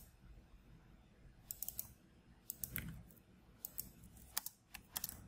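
Computer keyboard keys clicking in short bursts of a few strokes, with pauses between, as a line of code is typed.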